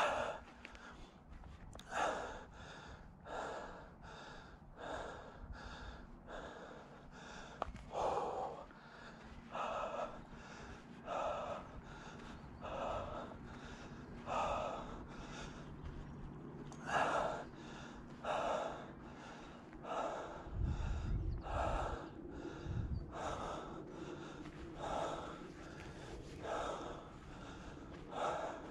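A man breathing hard, with loud gasping breaths about one a second. He is out of breath from pushing a heavy e-bike up a steep hill.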